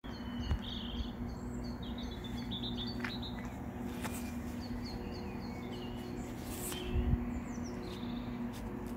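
Songbirds singing in runs of short, quickly repeated high chirps over a steady low hum, with a soft low thump about half a second in and another near seven seconds.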